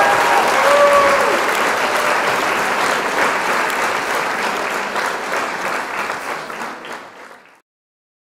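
Audience applause, steady clapping that fades out over the last couple of seconds and stops.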